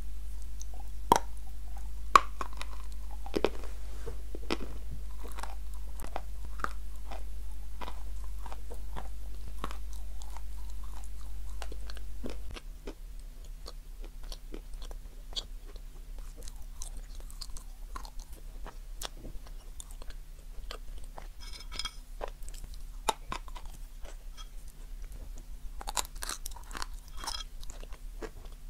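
Close-up biting and chewing of dry edible chalk, with sharp irregular crunches as the pieces snap and are ground between the teeth. A steady low hum underneath stops about halfway through.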